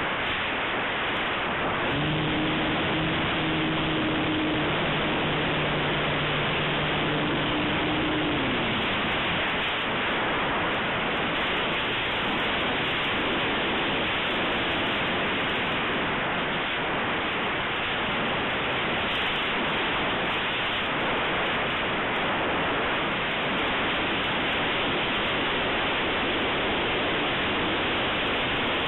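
Steady rush of airflow over the onboard camera's microphone on a Multiplex Blizzard model plane in flight. A low steady hum sounds along with it from about two to eight seconds in.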